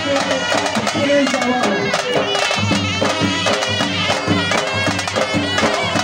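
Traditional Hunza folk dance music: a shrill reed pipe playing a wavering melody over steady, quick drumming.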